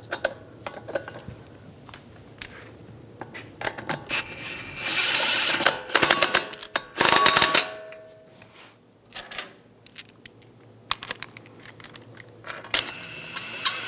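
Cordless brushless impact wrench spinning lug bolts into a car's wheel hub, with a high motor whine: one run of nearly two seconds about four seconds in, a short loud burst of blows about seven seconds in, and another run near the end. Light metallic clicks of the bolts and socket come between.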